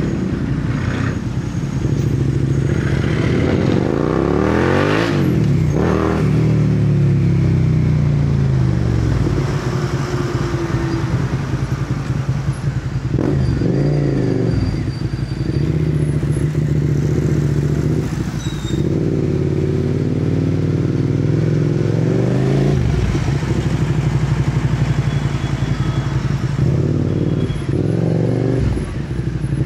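Suzuki SV650's V-twin engine breathing through a replica MIVV slip-on muffler with the catalytic converter removed, heard while riding. The revs climb sharply and drop back several times, with steadier running in between.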